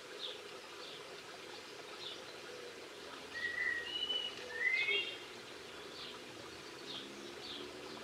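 Small songbirds calling: short high chirps repeat about once a second, and a few louder clear whistled notes and a short rising trill come about halfway through.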